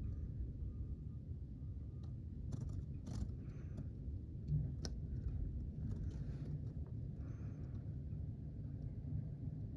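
Low steady rumble of a snowplow truck's engine as it clears the street, with a few faint clicks.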